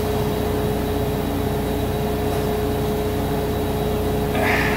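Steady machine hum with a constant mid-pitched tone and a low rumble, unchanging throughout.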